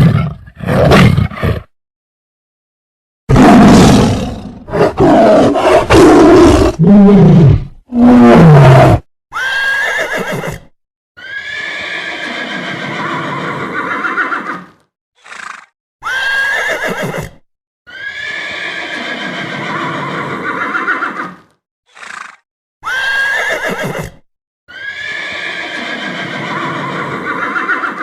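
A large animal roaring in several loud calls that fall in pitch, then a neighing call repeated about four times, each a short cry followed by a longer one of about three seconds.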